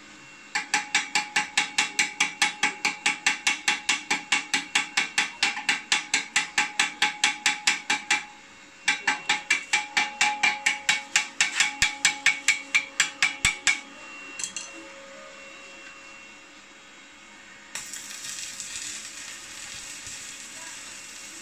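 Rapid, evenly spaced clicking, about five clicks a second, in two runs of several seconds. About eighteen seconds in, a stick-welding arc strikes and runs with a steady hiss.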